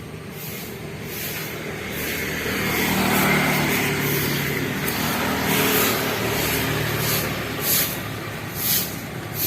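A motor vehicle's engine passing on the street, growing louder over the first three seconds and then running steadily.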